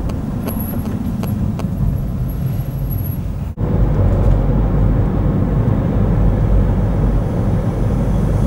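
Car engine and tyre noise from inside the cabin while driving. About three and a half seconds in there is an abrupt cut to louder, steadier road rumble at higher speed.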